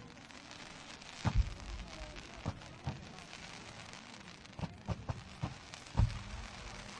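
Fireworks going off: a scattered series of sharp bangs over a low crackle, with a pair of loud booms about a second in and another near six seconds.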